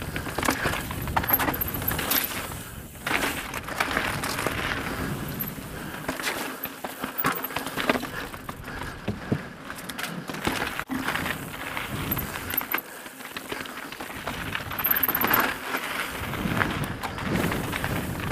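Evil The Calling full-suspension mountain bike descending a rocky gravel trail at speed: tyres crunching over loose stone, with irregular knocks and clatters from the bike as it hits rocks, over a steady rush of wind.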